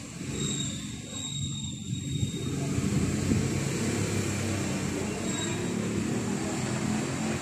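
An engine running steadily, a low hum that swells slightly later on.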